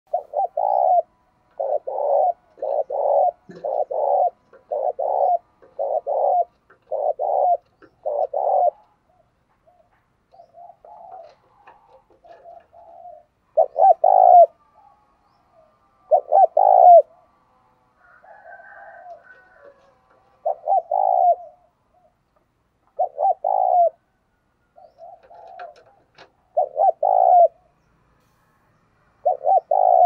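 Spotted dove cooing: a run of about eight short coos at roughly one a second, then soft murmured notes, then single coos every two to three seconds. It is the cooing of a caged decoy dove, used to call in and excite wild doves.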